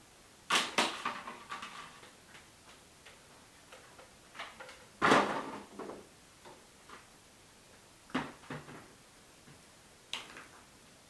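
Knocks and clatters of skill toys being handled and put down on a table, a handful of separate hits with the loudest about five seconds in.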